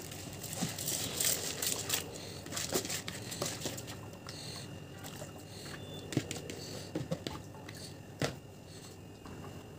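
Dry rice grains poured from a plastic bowl into a steel pot of hot water, a rustling hiss for about the first two seconds, then scattered clicks and taps as the last grains are knocked out of the bowl and the rice is moved about in the pot.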